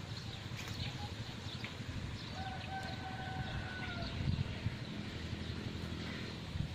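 A distant rooster crowing once, a single call held at nearly one pitch for under two seconds in the middle. Beneath it runs a steady low rumble from the camera being carried outdoors.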